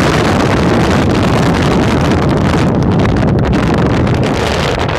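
Wind buffeting a phone's microphone held out of a moving car's window: a loud, steady rushing rumble that the uploader calls awful.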